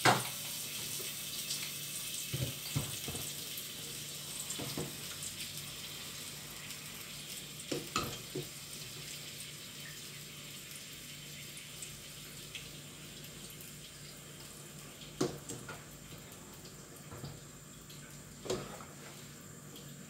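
A pot of chicken soup simmering on a gas burner: a steady watery hiss that slowly fades, broken by a handful of knocks and clinks of a metal ladle against the aluminium pot.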